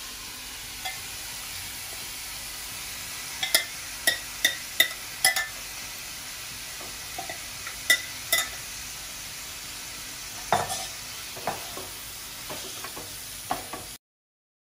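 Yogurt-marinated chicken sizzling in hot oil in a nonstick frying pan, with a steady frying hiss. A spoon and spatula click and scrape against the pan as the pieces go in and are stirred: a quick run of clicks a few seconds in, two more near the middle, and several scrapes later. The sound cuts off suddenly near the end.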